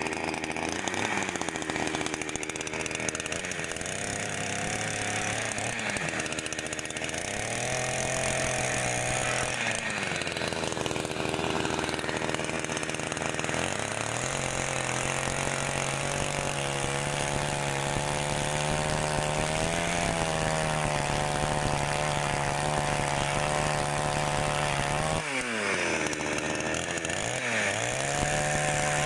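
Two-stroke chainsaw running, its revs rising and falling at first. From about halfway it is held at high revs while the bar saws through a frozen reindeer carcass. Near the end the revs drop sharply and climb again.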